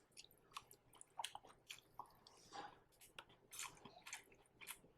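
A person chewing a juicy piece of fried tofu: faint, irregular wet mouth clicks and smacks.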